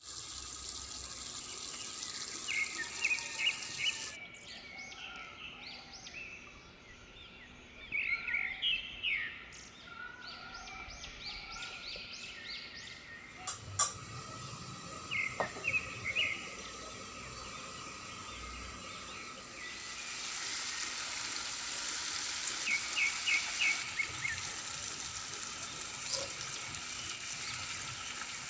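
Birds chirping in quick short series of calls. About twenty seconds in, a steady sizzling hiss sets in as spices start frying in hot oil, with more chirps over it.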